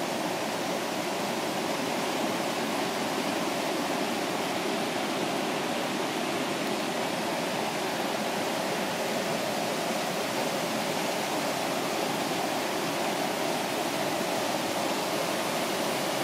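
The Falls of Dochart, the River Dochart rushing over its rock cascades: a steady, even roar of water.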